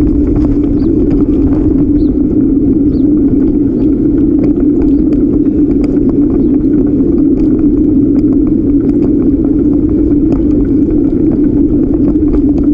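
Steady rumbling noise of wind and tyre vibration on the camera of a bicycle riding along a paved path, with faint scattered ticks.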